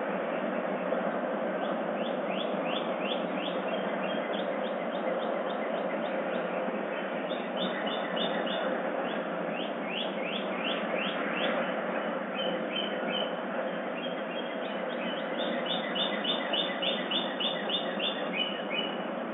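Dawn chorus of songbirds: runs of quick, falling chirps repeated many times, thickest and loudest near the end, over a steady background hiss.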